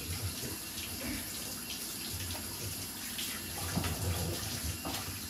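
Bathtub tap running steadily into the tub, with a couple of faint knocks about four seconds in.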